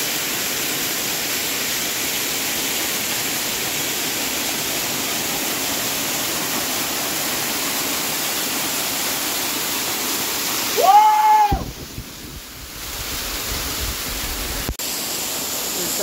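Steady rushing of a waterfall, water falling onto rocks. About eleven seconds in, a short pitched cry rising then falling cuts across it, and the rushing drops away for a few seconds before it returns.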